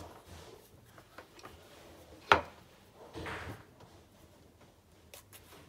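Handling noise of pipe cleaners being bent and pushed into paper drinking straws on a tabletop: a single sharp tap a little over two seconds in, a brief scratchy rustle just after, and a few faint clicks near the end.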